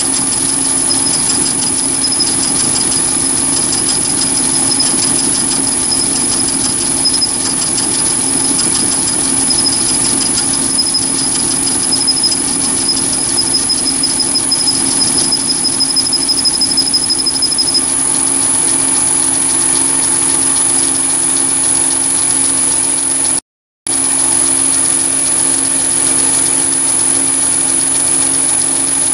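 Chinese mini lathe running steadily, its motor and drive giving a constant hum with a high whine, as a cutter spinning in the chuck mills a brass part held in a toolpost vice. The sound drops out completely for a moment about three quarters of the way through.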